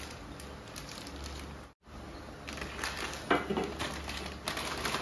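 Crinkly plastic snack and noodle packets being handled, a scatter of rustles and crackles. The sound cuts out completely for an instant about two seconds in.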